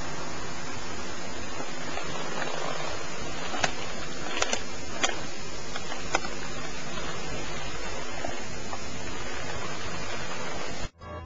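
Steady hiss of camcorder recording noise, with a few sharp clicks in the middle, cut off suddenly near the end.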